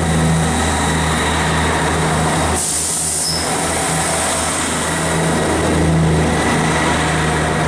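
Diesel train engine idling steadily with a low hum, and a short hiss of air about two and a half seconds in.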